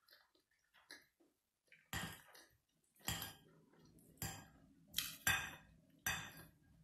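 A metal fork clinking and scraping against a plate while scooping macaroni and cheese: about six sharp strokes from about two seconds in, each fading quickly, after a stretch of faint small clicks.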